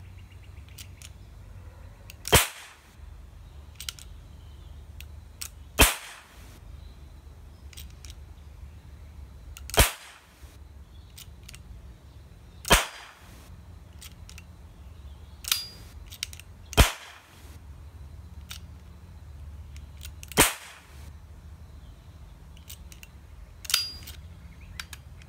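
Die-cast metal toy revolver cap gun firing ring caps one at a time: eight sharp, quite loud cap bangs a few seconds apart, two of them weaker than the rest, with faint clicks between the shots.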